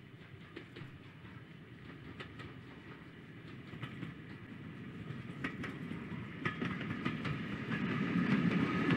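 GWR 0-4-2 tank engine 1450 propelling its auto coach under steam toward the listener. The train's rumble grows steadily louder throughout as it approaches, with scattered clicks from the wheels on the rails.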